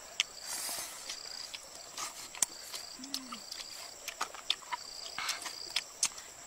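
Insects chirping steadily at two high pitches, one continuous and one in short repeated bursts, with scattered sharp clicks and crackles as charred skin and flesh are picked off a fish grilled in a split-bamboo clamp.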